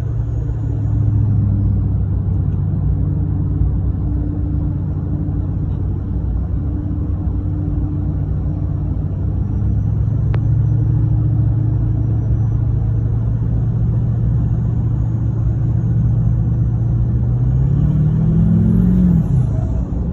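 LML Duramax 6.6-litre V8 turbodiesel through a 5-inch exhaust, running with a steady low drone. Near the end the engine note climbs and then falls back.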